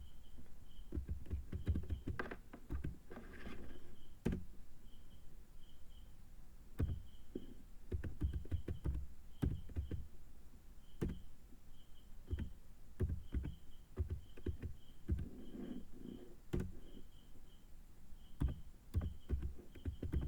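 Typing on a computer keyboard: irregular key clicks and taps, some in quick runs and some with longer pauses between them.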